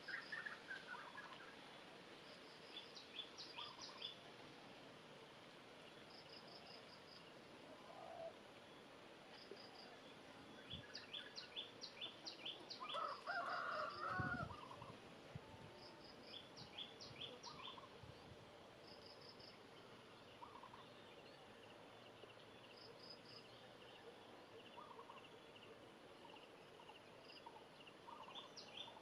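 Faint bird calls: short, rapid series of high chirps repeating every few seconds, with one louder, lower call about thirteen seconds in.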